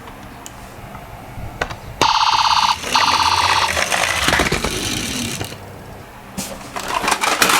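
A toy vehicle's electronic sound unit plays a buzzy ringing bell tone twice, each about two thirds of a second. Clattering and clicking of small toy cars rolling follow.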